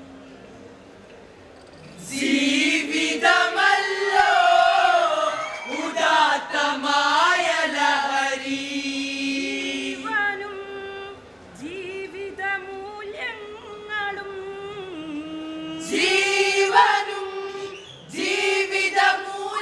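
Group of voices singing a Kolkali (Mappila folk) song together, in phrases. A quieter held note comes first; the singing begins loudly about two seconds in.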